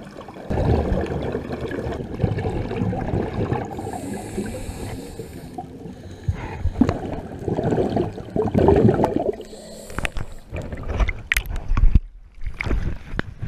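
Scuba regulator breathing heard underwater: rumbling bursts of exhaled bubbles rushing past the camera housing, twice, with a hiss between breaths. Near the end come sharp splashes as the camera breaks the surface.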